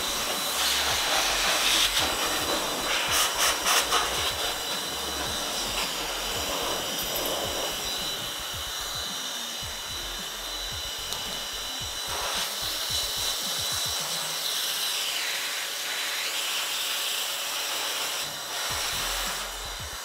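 Handheld electric air duster blowing dust out of a computer server case: a steady high motor whine over rushing air. There is a brief clatter of clicks a few seconds in, and the whine sags in pitch and recovers about three-quarters of the way through, then the level drops right at the end.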